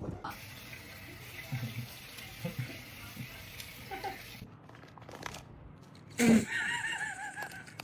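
A steady hiss like running water for about four seconds, then a loud, wavering cry with a warbling pitch lasting about a second and a half.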